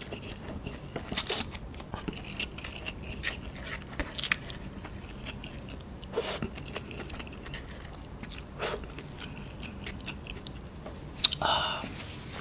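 Close-up chewing of a mouthful of cooked Mi Sedaap instant noodles, with sharp wet mouth clicks and lip smacks every few seconds.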